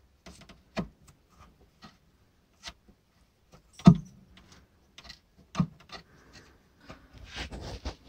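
Worn ball joint of an Audi A4 B5 lower rear control arm clicking and knocking as it is rocked by hand, a few sharp knocks with the loudest about four seconds in: play in the worn joint, the cause of noise from the suspension. Rubbing and rustling from the hands on the joint near the end.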